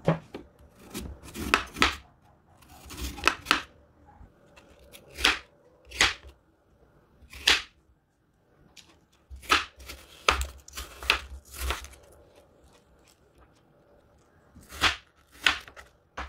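Kitchen knife cutting a peeled apple and striking a wooden cutting board: about eighteen crisp, irregular cuts, some in quick runs of two or three, with a pause of about two seconds midway.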